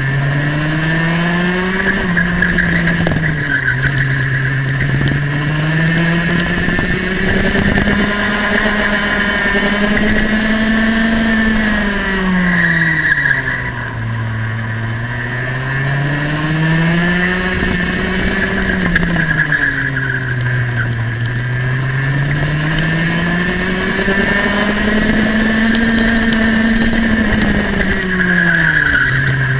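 Small two-stroke racing kart engine heard close up from onboard, running hard. Its note climbs as the kart speeds down each straight and drops as it slows for each corner, rising and falling about four times.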